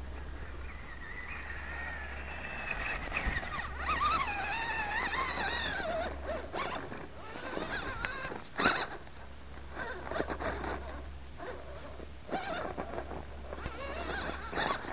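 Electric motor and gears of an Axial SCX10 1/10-scale RC rock crawler whining as it climbs, the pitch wavering up and down with throttle and load, over the rattle of its tyres on loose rock. A single sharp knock about nine seconds in is the loudest moment.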